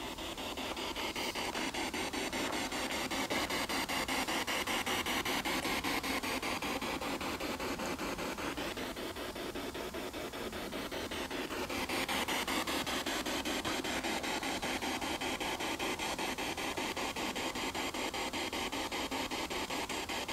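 Spirit box sweeping through radio frequencies: a steady hiss of static chopped into rapid, even pulses, getting a little louder about two seconds in and again about twelve seconds in.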